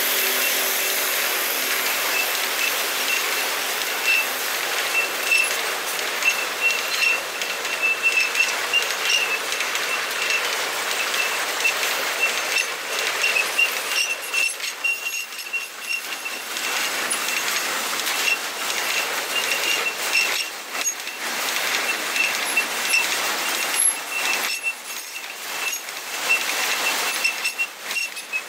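Empty freight wagons rolling past at speed: continuous wheel-on-rail noise with frequent clanks and rattles from the empty cars, and a thin, steady high-pitched wheel squeal.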